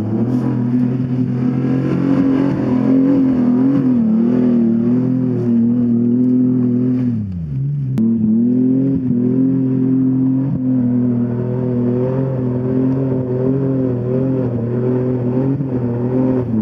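2000 Ford Explorer's engine held at high revs under load on an off-road hill climb, its pitch wavering. About seven seconds in the revs fall away, then after a sudden break the engine is back at high revs.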